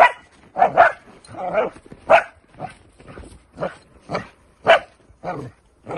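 Young Dutch Shepherd puppy barking in a steady string of short, sharp barks, about two a second. This is guard barking while it holds position beside its handler in protection training.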